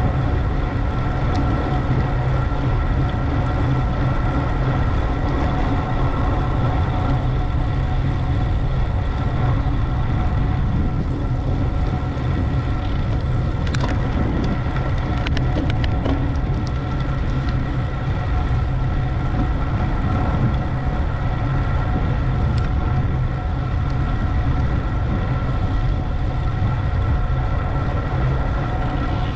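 Wind buffeting the microphone of a camera riding on a road bicycle at speed, a steady low rush with a faint steady hum above it. A few light ticks sound about fourteen seconds in.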